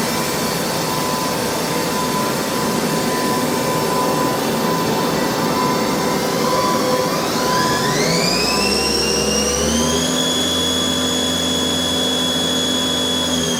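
Haas ST-10 CNC lathe running with a steady machine hum. About six and a half seconds in, the spindle speeds up with a rising whine that climbs in two steps and then holds steady at speed.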